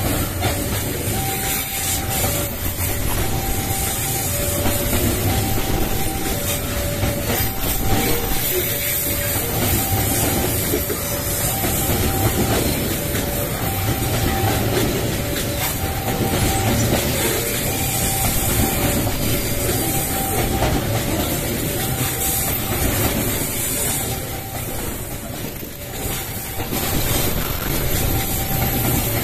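Long train passing with its wheels clattering steadily on the rails. Over it a two-tone warning alarm keeps sounding, a higher note then a lower one, repeating about every two seconds, as a level-crossing alarm does.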